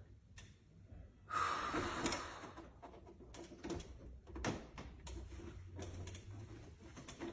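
Handcuff and restraint hardware clicking and scraping as the cuffed person works at the lock, with a louder rustling scrape about a second and a half in.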